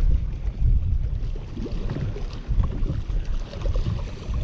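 Gusty low rumble of wind on the microphone over a boat on open water, with a hooked striped bass splashing at the surface near the end.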